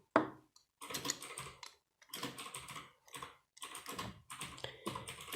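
Plastic LEGO bricks being handled and pressed onto a model: an irregular run of small clicks and clatter, with a sharper click just after the start.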